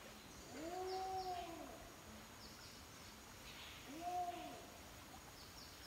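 An animal calling twice, each a drawn-out, arched call of about a second, with faint short high chirps between them.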